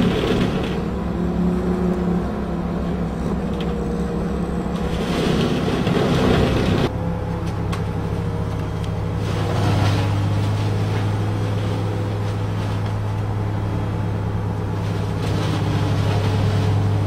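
Tigercat 1055 forwarder's diesel engine running steadily, with a faint wavering whine above it and a few short stretches of hiss; the sound changes abruptly about seven seconds in.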